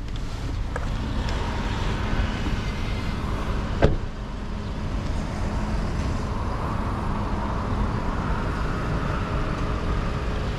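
A car door shut once, about four seconds in, over a steady low outdoor rumble and hiss.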